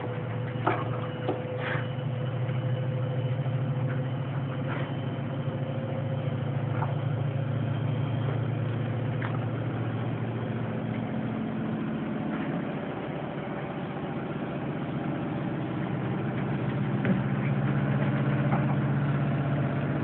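A motor or engine running with a steady low hum that slowly swells and eases, with a few light clicks near the start.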